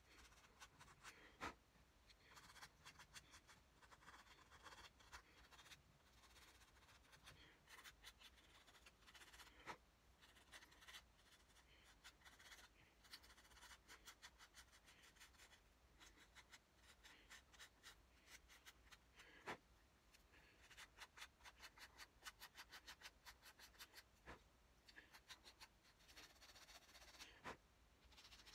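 Faint, quick scratching strokes of hand-shaping a small wooden fishing-lure body, rounding off its edges, with a few sharper clicks now and then.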